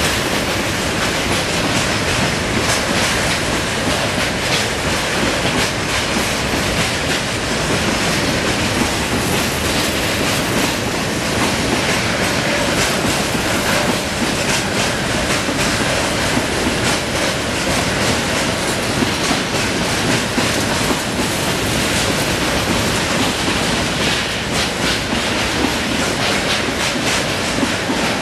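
Railway tank wagons of a freight train rolling past, their wheels clattering steadily over the track with many sharp clicks.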